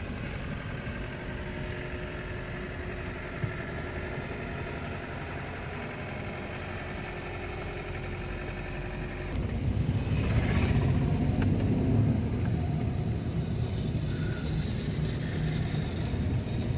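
Car engine and tyre noise heard from inside the cabin while driving over a rough, broken stretch of road under construction. A louder, deeper rumble sets in about halfway through and stays to the end.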